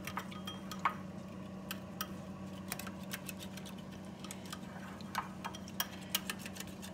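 Small wire whisk clicking irregularly against a ceramic bowl as a cornstarch-and-cold-water slurry is whisked together, over a steady low hum.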